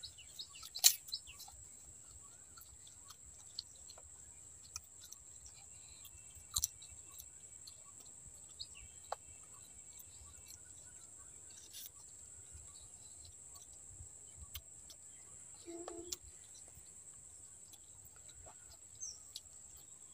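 Faint outdoor ambience: a steady high-pitched insect drone with a few bird chirps, and scattered sharp clicks, the loudest about a second in.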